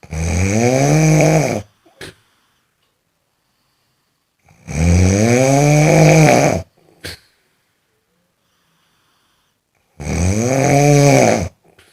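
A person snoring: three long, loud snores about five seconds apart. Each rises then falls in pitch and is followed a moment later by a brief short noise.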